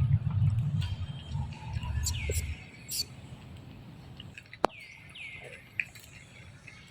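Birds calling with short chirps that sweep downward in pitch, around two seconds in and again near five seconds. A low rumble runs under the first two and a half seconds, and a single sharp click comes a little past halfway.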